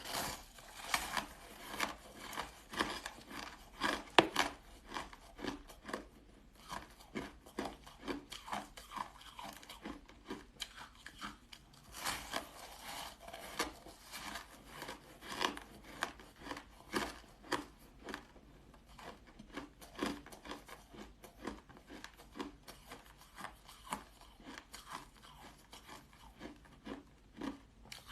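Close-up crunching and chewing of frozen shaved ice: a dense, irregular run of crisp crunches, with one loud crunch about four seconds in.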